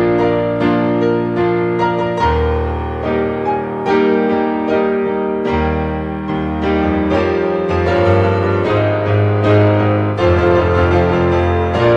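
Piano music, with a melody over held bass notes that change every second or two.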